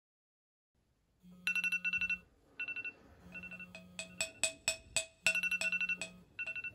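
Smartphone alarm going off: rapid repeated electronic beeps in bursts, starting about a second in, with a low buzz that switches on and off in roughly one-second stretches.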